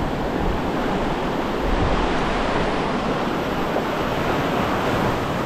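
Ocean surf washing in a steady rush, with wind buffeting the microphone.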